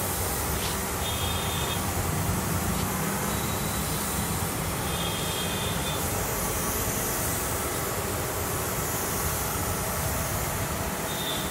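Steady mechanical running noise with a hiss over a low rumble, and a few brief high-pitched tones, about a second in, around five seconds in and near the end.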